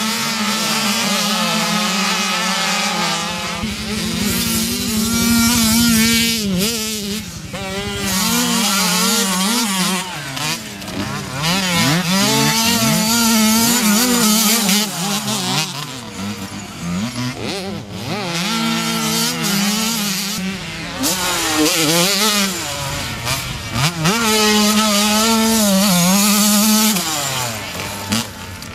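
Motocross dirt bike engines revving hard and easing off as the riders accelerate, shift and brake. The engine pitch climbs and drops again and again, with short dips in loudness between passes.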